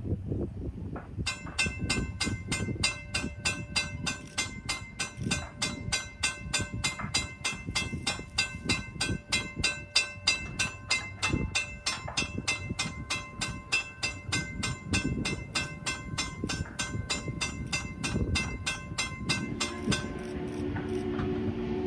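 A bell ringing in fast, even strikes over the low rumble of a train. Near the end the bell stops and a deep steam locomotive whistle starts to blow.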